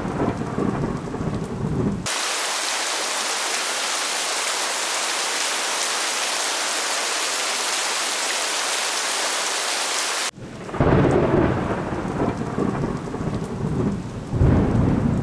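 Thunderstorm: thunder rumbling over rain. About two seconds in, it switches suddenly to a steady hiss of heavy rain. The rain cuts off abruptly at around ten seconds, when rolling thunder returns, with another loud roll near the end.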